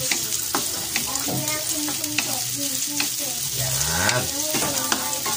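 Sliced onions and garlic sizzling in hot oil in a metal wok, stirred with a wooden spatula that scrapes and lightly knocks against the pan about every half second.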